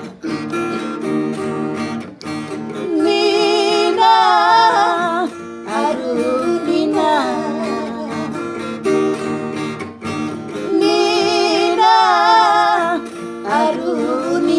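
Acoustic guitar strumming chords under a sung melody with wavering vibrato, which comes in phrases of a second or two separated by guitar alone.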